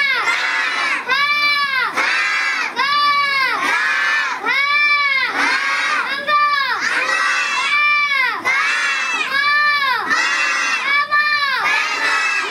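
A boy shouting Hindi letters and words off a chalkboard in a steady chant, one drawn-out syllable a little under every second, each rising and falling in pitch.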